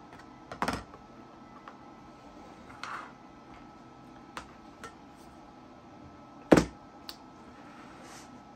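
Scattered clicks and knocks of Viking Arm cabinet installation kit parts being handled and set down on a workbench, with two louder knocks, one just after the start and one about six and a half seconds in.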